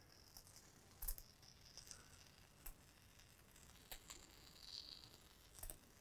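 Near silence with a few faint clicks and a soft hiss from a can of expanding spray foam on a dispensing gun as foam is squeezed out onto a rope.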